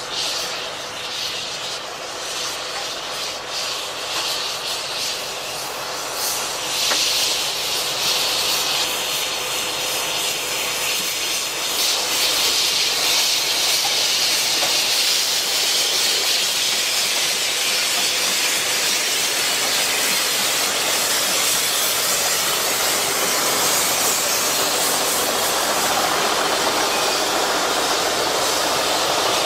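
Narrow-gauge steam locomotive No. 2 Prince, a small George England saddle-tank engine, hissing steam steadily as it moves slowly off with its train. The hiss grows louder about seven seconds in and stays loud.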